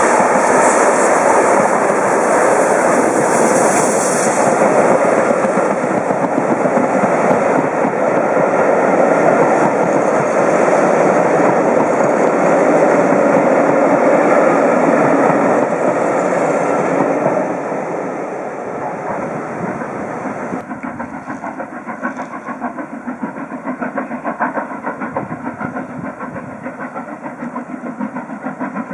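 A steam-hauled train of coaches passes close by, its wheels clattering over the rails in a loud, steady rumble that falls away after about 17 seconds. Then comes a quieter, more distant steam locomotive working, its sound pulsing with a regular beat.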